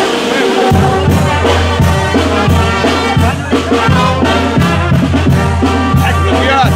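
Brass band playing an upbeat tune, with a pulsing bass line and regular drum beats.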